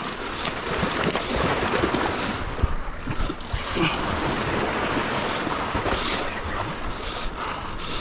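Wind buffeting the microphone over sea water washing against the shore, with splashing from a hooked fish fighting at the surface.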